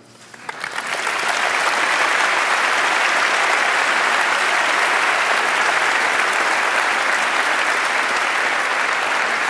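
Large audience applauding, swelling up over the first second and then holding steady.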